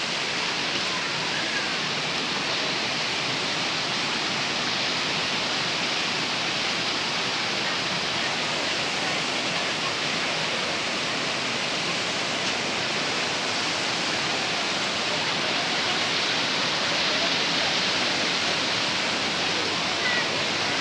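Steady rushing noise of a waterfall, falling water pouring without a break.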